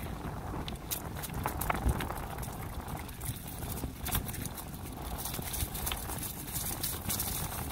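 Bicycle rolling along a path strewn with dry fallen leaves: the tyres crackle on the leaves, with irregular ticks and rattles over a low steady rumble.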